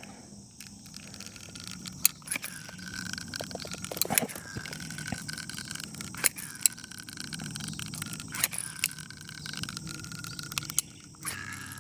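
Manual caulk gun being worked while beads of caulk are laid, with scattered sharp clicks from the trigger and plunger rod and faint scraping. The caulk is coming out poorly, which is put down to a bad tube of caulk.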